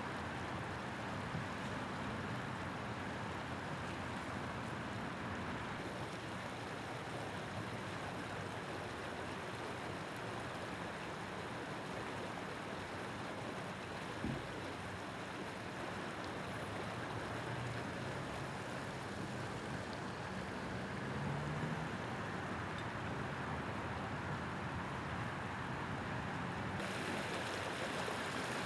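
Steady rush of water from a broken water main flowing out of the sidewalk and into the street, with an engine running low underneath. There is a single short knock about fourteen seconds in.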